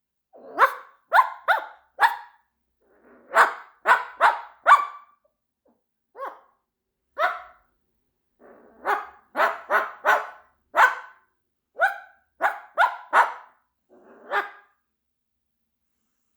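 Moluccan cockatoo imitating a dog's bark: about twenty short barks in irregular bursts of two to five, with brief pauses between the bursts.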